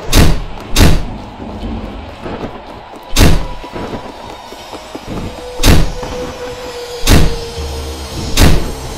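Loud, heavy knocking on a door: six booming knocks, two close together in the first second and then four more spaced out over the following seconds.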